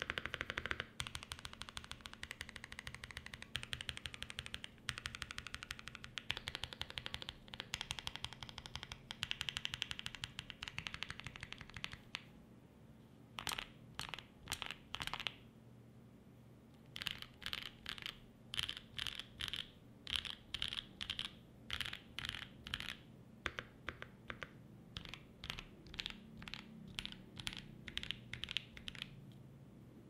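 Mechanical keyboard typing on a Mode 80 with lubed Holy Boba tactile switches, 72 g springs, an FR4 plate and GMK Rudy keycaps. Fast continuous typing for the first twelve seconds or so, then slower, separate key presses in short runs of about two or three a second, stopping about a second before the end.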